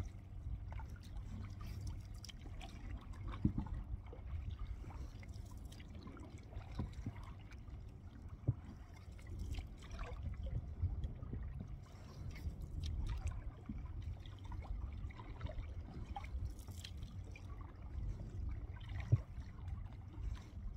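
Water trickling and dripping around a paddled canoe, over a steady low rumble of wind on the microphone, with a few light knocks about 3, 8 and 19 seconds in.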